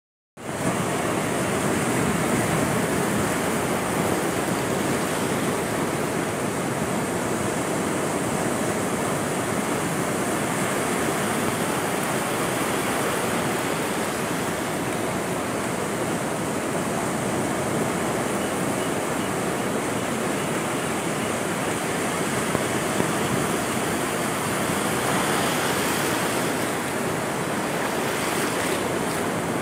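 Ocean surf breaking and washing up a sandy beach: a steady rush of water.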